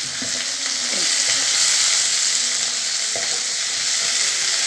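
Cut vegetables (potato, capsicum and beans) sizzling in hot oil in a kadai, stirred with a steel ladle that scrapes against the pan now and then: a steady frying hiss.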